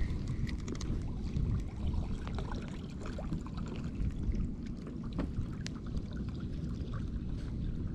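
Water lapping against a plastic kayak hull over a steady low rumble, with scattered faint clicks.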